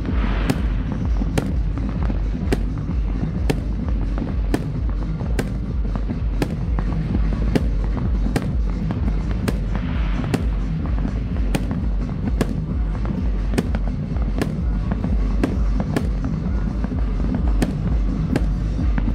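Fireworks banging and booming over music with a steady beat of about two a second, with bursts of crackling near the start and again about ten seconds in.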